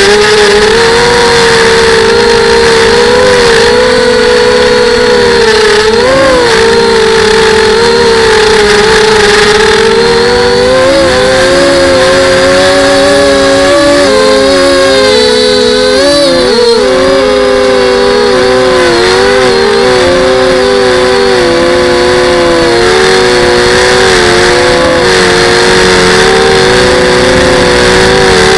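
FPV quadcopter's brushless motors whining, with several close tones that rise and dip in pitch as the throttle changes, and a steady rush of air over the propellers.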